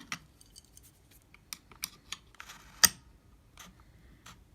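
Sharp clicks and small knocks of plastic and metal parts being handled on an opened capsule espresso machine as a metal piece is worked loose from its lever assembly, the sharpest click nearly three seconds in.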